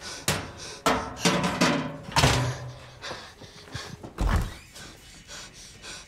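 A cabinet being opened and rummaged through: a run of knocks and clunks, the loudest about two seconds in, and a low thud a little after four seconds.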